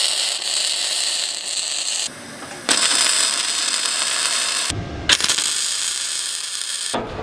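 MIG welder arc crackling as a heavy-wall steel pipe is welded onto steel plate, in three runs of about two seconds each with short breaks between.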